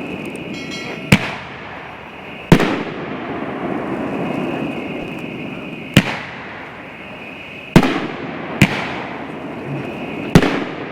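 A 2-inch Nishiki kamuro firework cake firing: six loud booms at uneven intervals of one to three and a half seconds, each with a short echoing tail, from shells lifting out of their tubes and breaking overhead, over a steady hiss.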